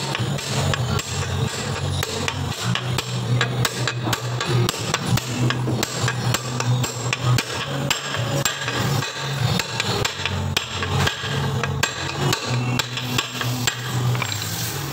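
Repeated hammer blows on a steel drift, driving a ball bearing into its bore in a Honda Vario 150 aluminium crankcase half. A long run of sharp metallic strikes at an irregular pace.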